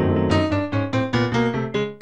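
Piano music playing a quick run of separate struck notes, about five a second.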